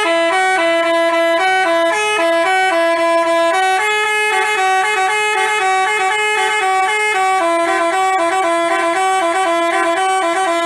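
Basuri telolet bus horn playing a tune: a quick run of short notes stepping up and down, which stops abruptly at the end.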